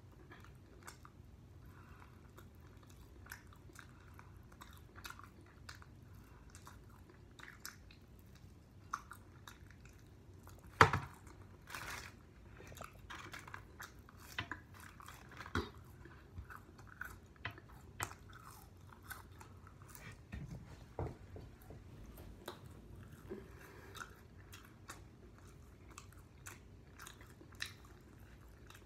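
Close-up biting and chewing on sauced fried chicken wings: irregular small smacks and clicks of eating. One much louder sharp knock about eleven seconds in.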